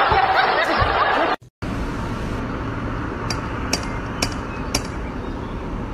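Steady outdoor street noise with four sharp knocks about half a second apart, as a cat leaps at a front door and its handle. Before that comes a short stretch of loud, muffled noise, cut off by a brief dropout.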